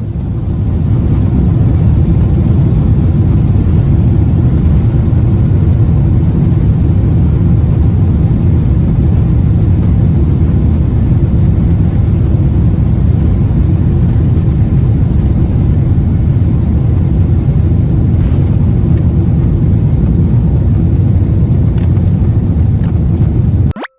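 Loud, steady low rumble of a vehicle in motion, cutting off suddenly near the end.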